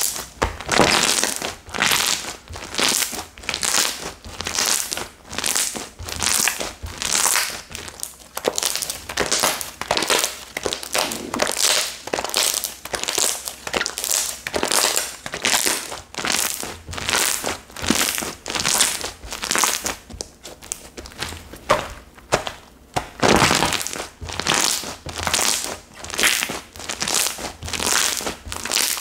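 Slime being squeezed and pressed by hand over and over, each press a short crinkly, crackling squish, about two a second.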